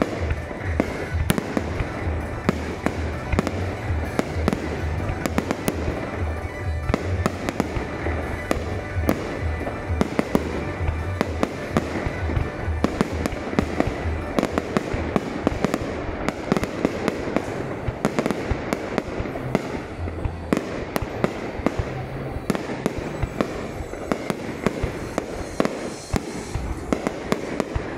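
Fireworks display: shell bursts and bangs going off in rapid, dense succession, many a second, over a continuous rumble.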